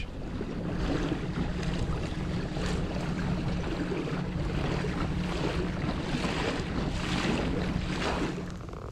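Hobie fishing kayak under way on open lake water: water rushing and splashing along the hull, with wind on the microphone. A steady low hum runs beneath and stops shortly before the end.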